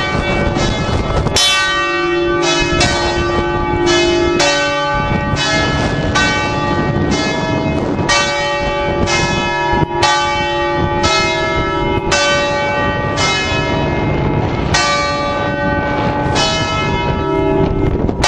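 Several large bronze church bells swinging and ringing together, heard close up inside the belfry. Their clappers strike about twice a second in an uneven, overlapping jumble of long ringing tones.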